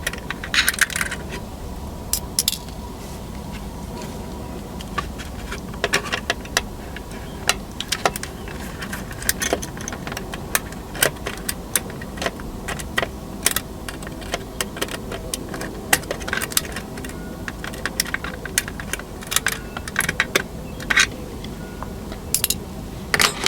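Scattered small metallic clicks and ticks of tools working tiny screws out of a plastic model railcar body and the loose screws being handled into a small container.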